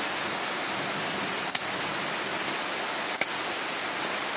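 Two sharp chops of a large kitchen knife cutting through chicken feet on a hard chopping surface, about a second and a half apart. A steady hiss runs underneath.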